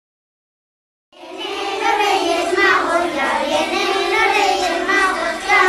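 Children singing a song, beginning about a second in after silence.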